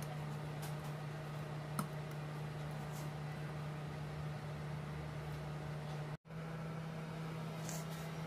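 Steady low electrical hum with a hiss of background noise, and a few faint ticks from small phone parts being handled. The sound cuts out for an instant about six seconds in, then the hum carries on.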